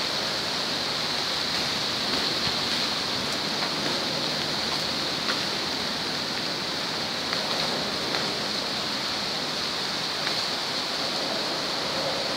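Fountain water splashing and falling into its pool, a steady hiss.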